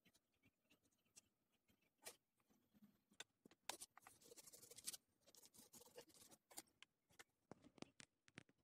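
Faint graphite pencil strokes scratching on paper in short spells, among light clicks and taps as the pencil and drawing tools are handled.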